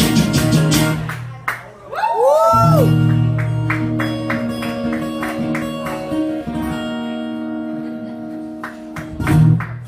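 Two acoustic guitars strum the closing chords of the song. About two seconds in, a brief rising-and-falling note sounds. A final chord is then left ringing and slowly fades. A voice comes in near the end.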